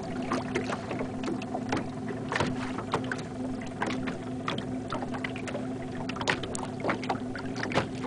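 Small waves lapping and slapping against a boat's hull in quick irregular splashes, over a low steady hum.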